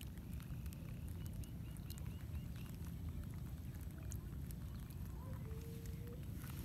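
A steady low rumble, with a faint high call near the start: one held whistle, then a quick run of about six short chirps.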